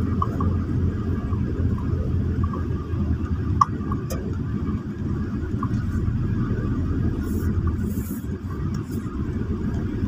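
Car driving along a concrete road, heard from inside the cabin: a steady low rumble of engine and tyres, with one sharp knock about three and a half seconds in.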